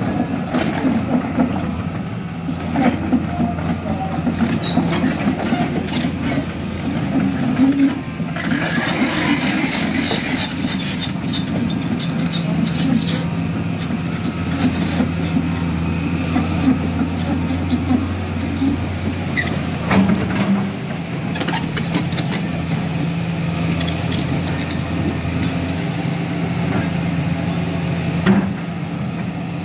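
Volvo EC210 crawler excavator's diesel engine running under working load, with scattered knocks and clatter of the bucket and tracks against loose rock.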